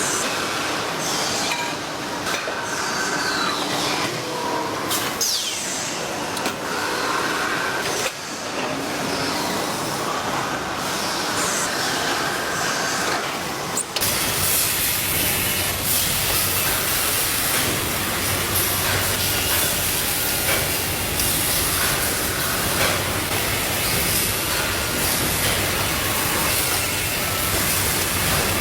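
Factory machinery at work in stainless steel bottle production: running noise with short whines, squeals and knocks, then about halfway through an abrupt change to a louder, steady hiss.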